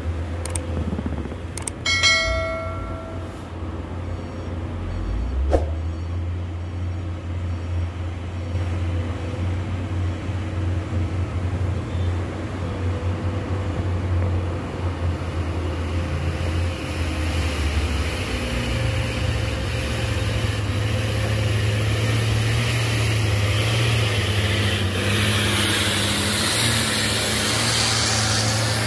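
Diesel engine of a coal-loaded Hino Ranger dump truck labouring up a haul-road incline, a steady low drone that grows louder as the truck approaches and passes close by. About two seconds in, a short bell-like chime and a few clicks.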